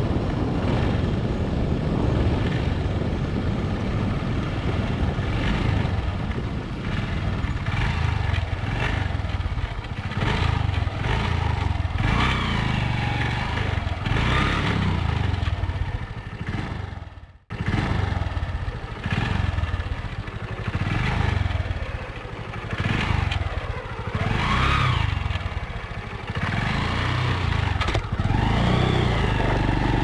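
Motorcycle engine running on the move, with rushing wind on the microphone. The engine note rises and falls several times as the rider changes speed. The sound drops out sharply for a moment about halfway through.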